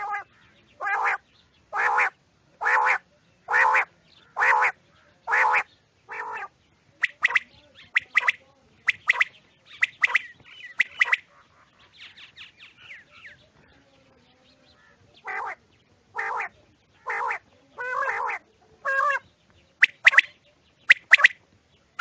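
Caged quails calling: about seven harsh calls roughly a second apart, then quicker, sharper clipped notes. After a pause of a couple of seconds the calls resume and end in short, sharp notes.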